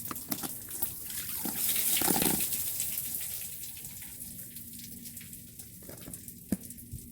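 Dirty upholstery-cleaning water poured out of a container into a drain, splashing: loudest about two seconds in, then tailing off to a trickle.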